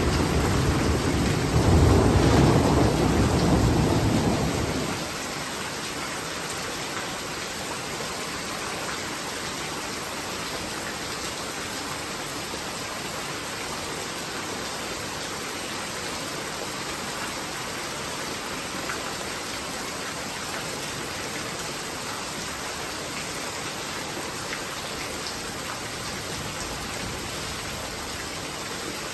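Steady rain hissing, with a low rumble of thunder that swells about two seconds in and dies away about five seconds in; after that only the even sound of the rain.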